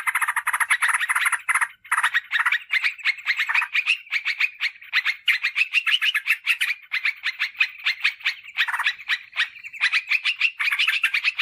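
Yellow-vented bulbul calling: a fast, dense chatter of short notes, about ten a second, broken by a few brief pauses.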